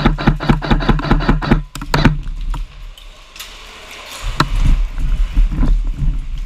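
Airsoft electric gun (AEG) firing a full-auto burst, about seven shots a second, for under two seconds, with a single shot after it. From about four seconds in a low rumbling runs, with one sharp click.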